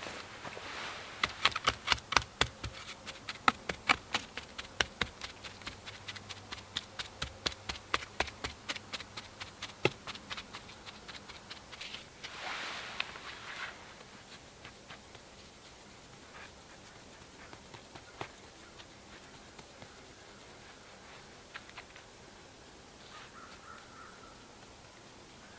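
A wooden stick tapping and packing loose dirt against the base of a log wall: quick sharp taps, a few a second, for about the first ten seconds, then a short scrape of dirt, then only faint scattered ticks as the soil is pressed down by hand.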